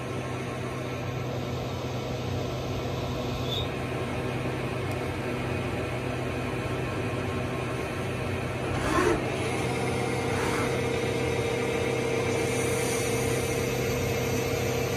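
Okuma Genos L3000-E CNC lathe running a face-grooving cut with flood coolant spraying against the inside of its door window: a steady machine hum under a hiss of coolant. About nine seconds in comes a brief, louder whir that sweeps up and back down, after which a steady higher whine holds.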